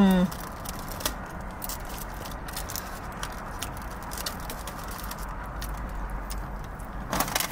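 Close-miked eating sounds: quiet chewing with scattered small crunchy clicks over a steady low hum. Near the end comes a louder run of crunching and rustling.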